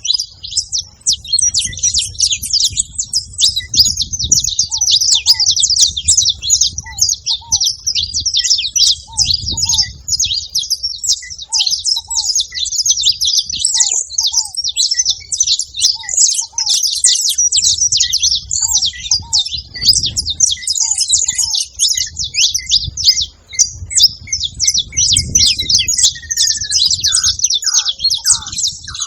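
A flock of saffron finches chirping and twittering together, a dense, unbroken high chatter. Underneath, a lower short call repeats every second or two, and there is a low rumble.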